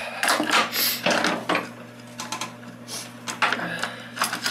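Locking pliers (vise grips) clicking, scraping and knocking against the metal of a lawn tractor as they are worked into place, in an irregular run of sharp clicks and rattles. A steady low hum runs underneath.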